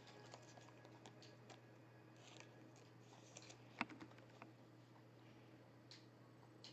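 Near silence: faint scattered clicks and handling noises over a low steady hum, with one sharper click nearly four seconds in.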